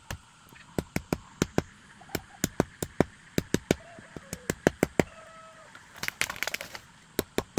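Rapid, sharp chopping strikes of a blade into wood, about two or three a second, with a quick flurry of crackling around six seconds in.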